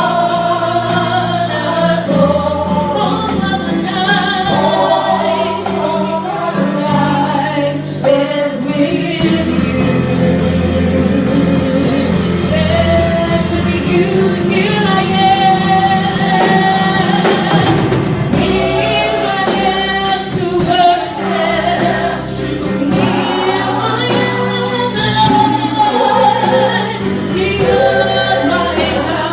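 Music with voices singing together over instruments and a steady drum beat.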